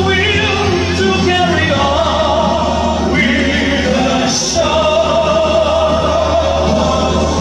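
Music with singing voices over a held low bass note.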